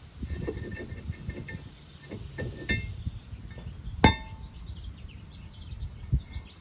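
Metal tools and parts clinking and clattering as they are handled, with one loud, ringing metallic clink about four seconds in.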